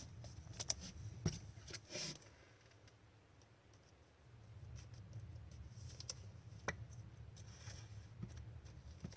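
Trading cards being handled and flipped through: a quick cluster of light clicks and rustles in the first two seconds, then quieter, with a faint low hum and an odd click later on.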